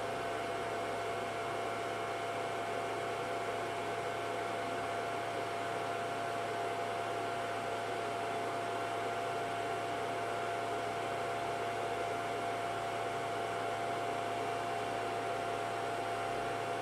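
Cooling fans of a ToolkitRC M8D charging setup running steadily under a charge load of over 1000 W. They make an even whirring hiss with a steady whine and a low hum under it.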